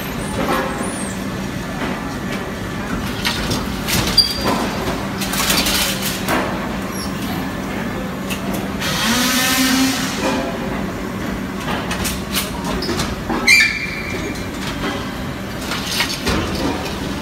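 Automatic clay brick packaging machine running: a steady machine hum with scattered clanks and knocks, and a hiss lasting over a second about nine seconds in.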